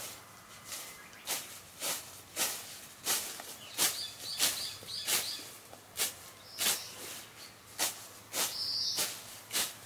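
Hand sickle cutting through weeds in repeated strokes, about two crisp swishes a second, with a few short high chirps in the background.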